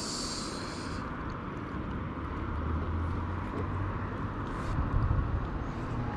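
Steady outdoor noise: a low rumble with a hiss over it, and a brighter high hiss that stops about a second in.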